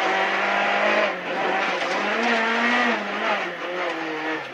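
Rally car engine heard from inside the cockpit, pulling hard with the revs repeatedly climbing and dropping. There is a brief dip in loudness about a second in and another near the end.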